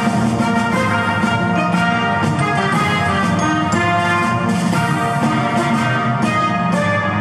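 Music with a steady beat and melody playing without a break.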